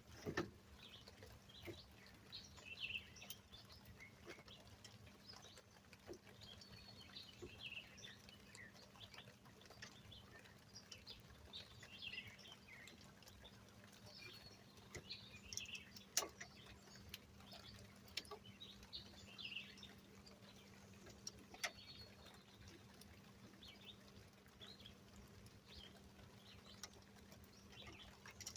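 Faint birdsong: small birds chirping on and off, with a few sharp clicks, the loudest about 16 seconds in, over a low steady hum.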